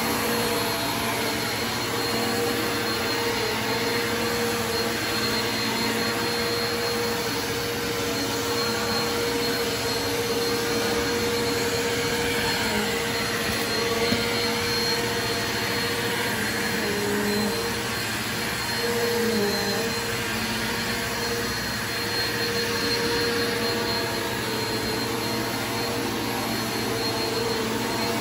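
Upright bagless vacuum cleaner running steadily over a carpet rug, its motor hum dipping briefly in pitch a few times.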